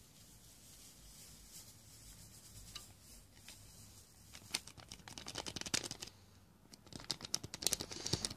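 Foil powder packet crinkling and being pinched and tapped as the last of the candy powder is shaken out over a plastic mixing tray. It is faint at first, then comes as runs of quick small clicks and crackles from about halfway through.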